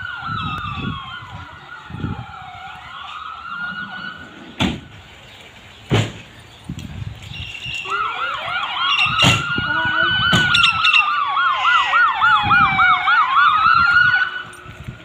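Fire pumper's siren approaching: a slow rising-and-falling wail, joined about eight seconds in by a fast yelping siren, growing loud and then cutting off just before the end. A couple of sharp knocks come in between.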